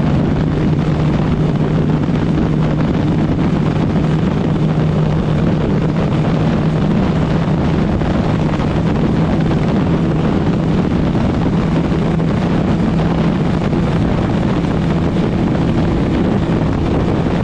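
TVS Apache RTR 160's single-cylinder engine running flat out at high revs near top speed, about 120 to 135 km/h, holding one steady drone. Heavy wind noise on the microphone lies over it.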